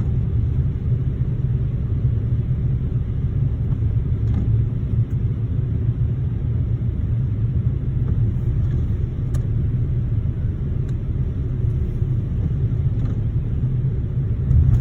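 Car driving on a snowy road: a steady low rumble of engine and road noise that holds constant, with a few faint ticks now and then.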